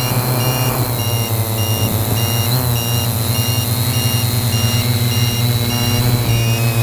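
3DR Y6 hexacopter's motors and 15-inch propellers humming steadily in flight, the pitch wavering slightly as the throttle changes. A high electronic beep repeats about three times a second throughout.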